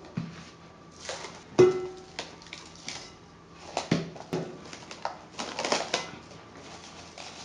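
Plastic cling film being pulled off its roll, torn, and stretched and pressed over a mixing bowl, crinkling and rustling in several short bursts. The loudest is a sharp crackle or knock about one and a half seconds in, and there is a longer rustle near the end.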